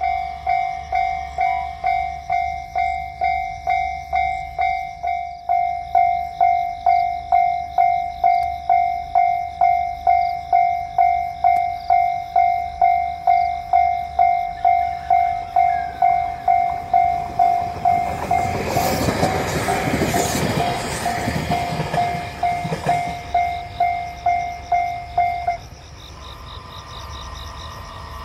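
Railroad crossing warning bell ringing, a steady electronic ding repeated a little under twice a second. A JR Kyushu commuter train rushes and clatters through the crossing from about 18 to 23 seconds in, and the bell stops about two seconds after the train has passed.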